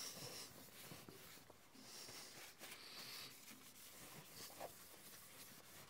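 Faint rubbing of tissue paper buffing machine wax off the bed of a planer-thicknesser, in a few soft strokes.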